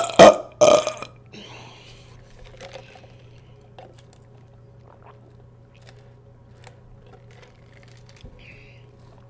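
Two loud burps in quick succession in the first second, then faint sipping of soda through a straw and small mouth sounds.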